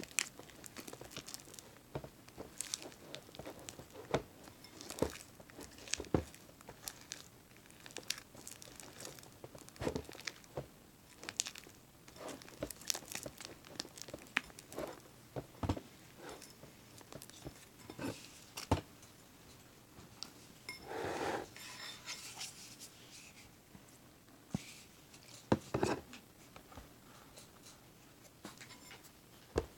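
Fluffy slime of glue, shaving cream and contact lens solution being stirred and worked as it thickens: irregular sticky crackles and squelches with sharp taps against its container, and a longer crackling stretch about two-thirds of the way through.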